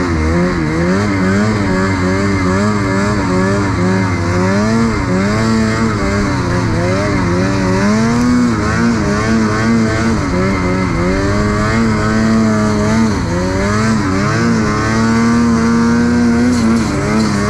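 Ski-Doo 850 snowmobile's two-stroke engine running under way, its pitch rising and falling constantly as the throttle is worked, then held steadier for a few seconds near the end.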